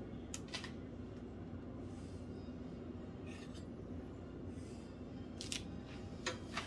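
Quiet room tone with a steady low hum, broken by a few faint light clicks; near the end a metal spatula is laid down on a foil-lined baking sheet with a couple of soft clicks.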